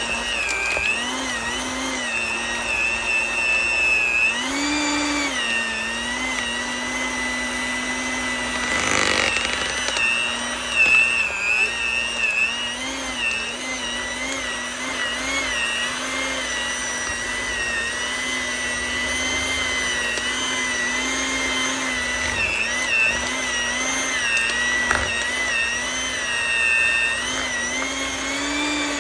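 Electric hand mixer beating softened cream cheese in a bowl: the motor runs steadily throughout, its pitch dipping and rising slightly as the beaters work through the thick cheese.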